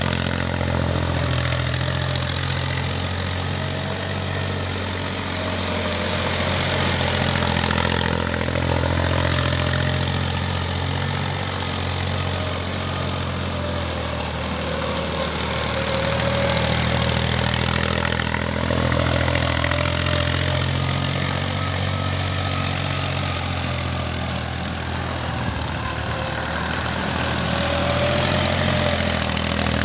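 Mahindra Sarpanch 275 tractor's three-cylinder diesel engine running steadily, its level gently rising and falling every few seconds.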